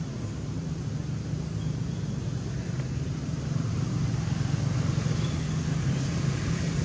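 A steady low engine hum, like a motor vehicle running nearby, slowly growing louder.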